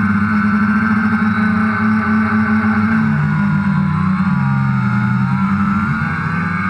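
DJI Phantom quadcopter's four motors and propellers running with a steady buzzing whine; the pitch sags and wavers for a couple of seconds in the middle as the rotor speeds change while it manoeuvres.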